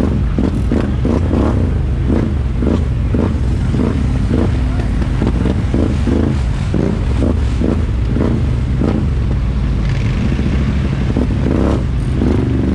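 ATV engine running at a steady pitch while riding a rough trail, with frequent clattering knocks and rattles from the machine bouncing over ruts and mud.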